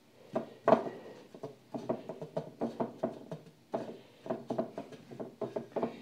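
Raw chicken pieces being tossed and pressed by hand in breadcrumbs in a ceramic dish: a steady string of short crumbly rustles and soft taps against the dish, coming in quick runs.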